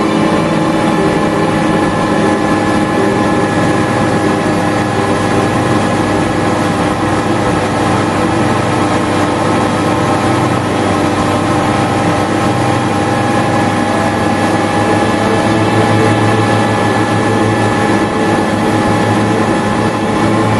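Towing motorboat's engine running steadily at speed, a constant hum over the rush of the wake.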